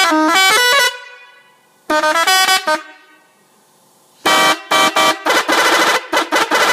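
Indonesian 'telolet' multi-tone bus horn playing a tune in stepped notes. The tune stops about a second in, and a short phrase follows a second later. After a pause, from about four seconds in, comes a fast string of short blasts.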